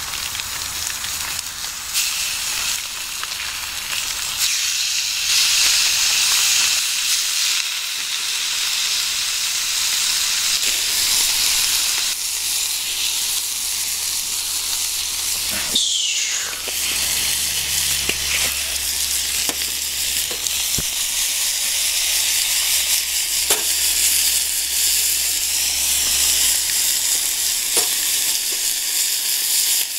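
Chicken pieces sizzling steadily in a frying pan over a wood-burning stove, with occasional light clicks and a brief falling squeak about halfway through.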